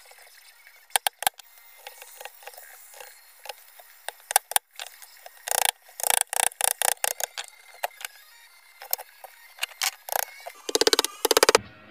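Wood chisel cutting a hand-made dovetail joint: scattered sharp knocks and taps on the wood, with a quick run of taps about halfway through. A short pitched buzz comes just before the end.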